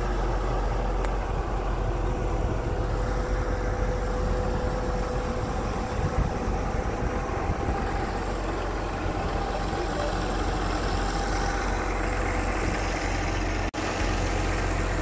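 Tigercat 470 tracked mulcher's diesel engine idling steadily. The sound cuts out for an instant near the end.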